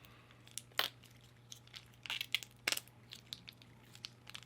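Quiet, scattered crinkles and clicks of a paper sandwich wrapper being handled, with sharper ones about a second in and twice more between two and three seconds in.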